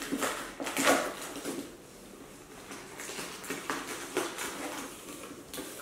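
Hands rustling and scraping at packing inside a cardboard box while unpacking it, busiest in the first second, then quieter with a few scattered scrapes.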